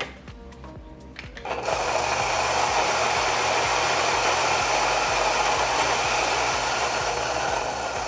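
Fellow Ode Gen2 coffee grinder's 64mm flat burrs grinding a 20-gram dose of beans at a medium setting. The motor starts about a second and a half in, runs as a steady whirring grind with a pretty even tone that is not quiet, and eases slightly near the end.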